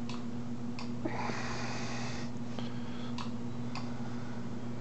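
Steady low electrical hum from the MEC AutoMate's drive, fed from a variac at too low a voltage to make it run, with a few faint clicks and a brief hiss about a second in.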